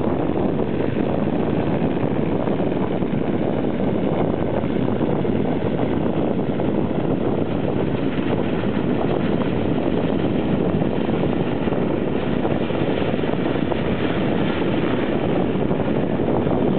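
Helicopter in flight: a steady rotor and engine noise that holds at one level throughout.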